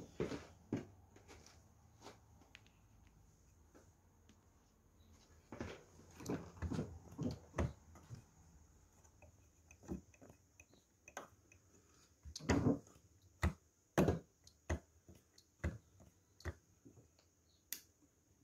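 A 1cc Davies Charlton model diesel engine's wooden propeller being flicked over by hand: a series of short, irregularly spaced clicks, one per flick. The engine does not fire or run.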